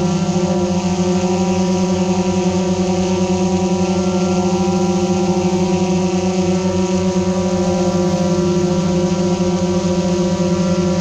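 Steady hum of a multirotor drone's motors and propellers, one constant buzzing pitch with several overtones that holds level throughout.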